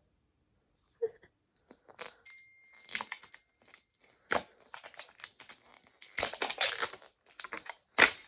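Paper wrapper being torn and crumpled off a Mini Brands toy capsule by hand, crinkling in irregular bursts that start about a second in and grow busiest near the end.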